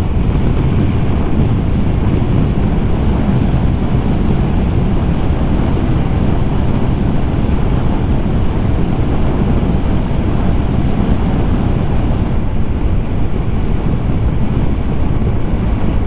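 Steady wind rush over the microphone, mixed with engine and road noise from a Honda Giorno 160 scooter riding along a road.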